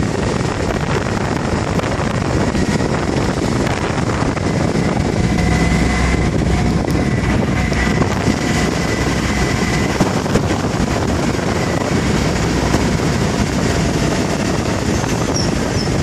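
Steady wind rushing over the microphone along with the road and engine noise of a car being driven.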